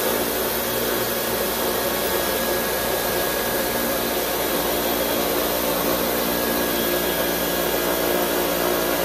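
Dyson Cyclone V10 cordless stick vacuum running steadily with its motorised cleaner head, sucking up spilled white granules from a wooden floor.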